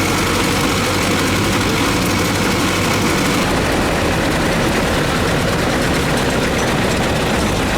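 A vehicle engine running steadily under a constant wash of noise.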